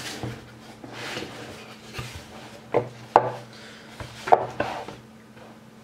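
Cardboard subscription box being opened on a wooden desk: the lid rubs and scrapes as it is worked loose, with several sharp knocks of cardboard against the desk between about two and four and a half seconds in.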